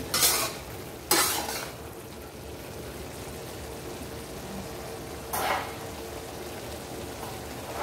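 String beans and ground pork frying in an aluminium wok, with a low sizzle. Three short scraping rushes of a metal spatula stirring the beans: two in the first second and a half, one about five and a half seconds in.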